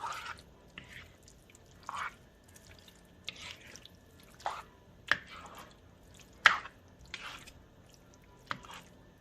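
Utensil stirring thick, creamy alfredo pasta in a pan: irregular wet squelches and sharp clicks of the utensil against the pan, roughly one a second.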